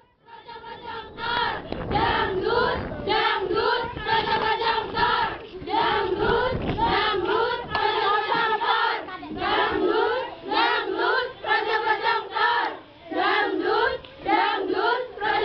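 A group of teenage girls singing a song together in unison, in short repeated phrases, with a few low thumps under it early on and around the middle.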